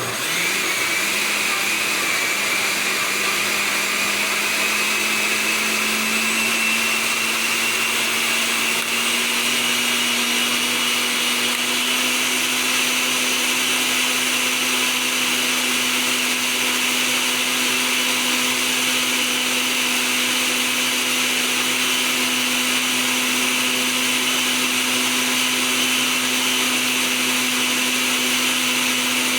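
Electric kitchen blender running continuously, liquefying lemon juice and garlic. Its motor pitch rises slightly over the first several seconds, then holds steady.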